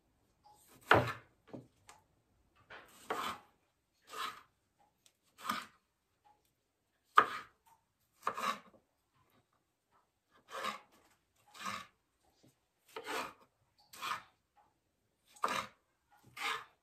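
Kitchen knife slicing tomatoes on a wooden chopping board: short, separate cuts at an uneven pace of about one a second, each ending in a knock of the blade on the wood.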